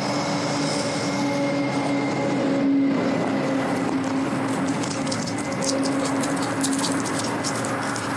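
Renault 4x4 truck's turbo diesel engine idling steadily with a constant hum, with crunching footsteps on gravel over the second half.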